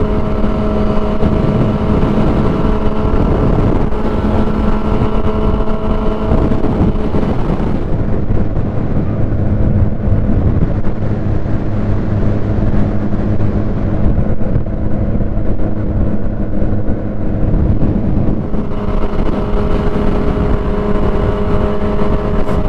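Yamaha R6 sport bike's inline-four engine running at a steady cruise. About eight seconds in the sound dulls and its upper tones fall away for roughly ten seconds, then the brighter note comes back near the end.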